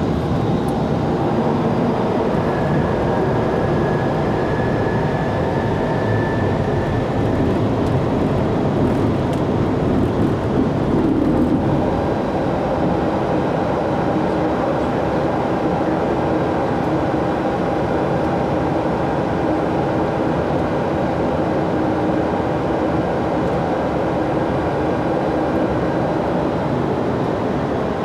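Steady rumble and rush of airflow and engine noise inside an Airbus A321 airliner cockpit during descent. A faint high thin tone is heard for a few seconds near the start, and the noise shifts slightly about twelve seconds in.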